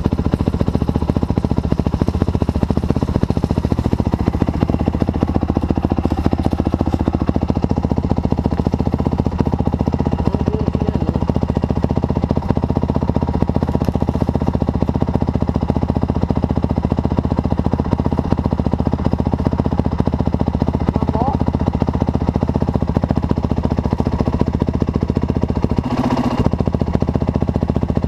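Honda CRF450R dirt bike's single-cylinder four-stroke engine running steadily, with a short louder burst about two seconds before the end.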